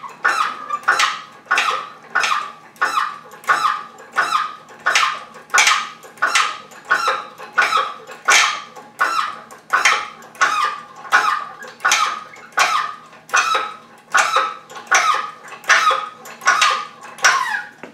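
Hydraulic engine hoist being pumped by hand to raise an engine, squeaking on every stroke at about two strokes a second, each squeak dropping in pitch.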